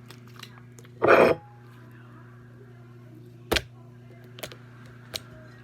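A steady low hum, with a short loud rustle or clatter about a second in and a sharp knock a little past the middle, followed by a few faint clicks.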